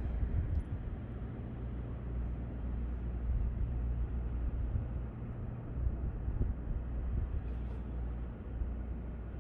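Steady low rumble of outdoor background noise with a faint even hiss and no distinct events.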